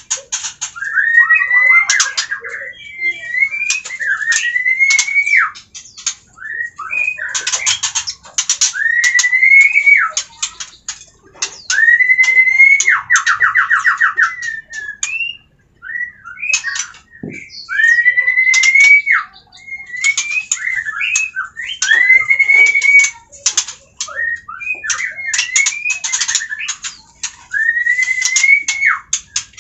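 White-rumped shama (murai batu) calling over and over: a rising whistled note about a second long, repeated every two or three seconds, mixed with sharp clicking notes. The owner takes the calling as the parent bird reacting to its chicks being taken from the nest box.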